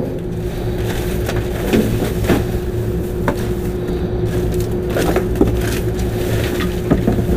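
Plastic trash bags and cardboard crinkling and rustling in irregular bursts as a hand rummages through a dumpster, over the steady low hum of an idling Honda Shadow Spirit 750 V-twin motorcycle engine.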